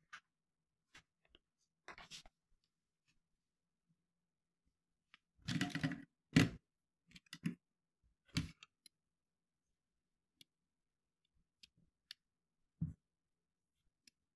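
Scattered clicks and knocks of hands handling and picking up a small Lego car from a desk, with a louder cluster of knocks about six seconds in and a single low knock near the end.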